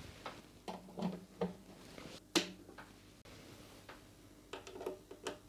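Patch cables being plugged into Eurorack module jacks and handled: a scattering of short clicks and knocks, a few in the first two and a half seconds and a quick cluster near the end.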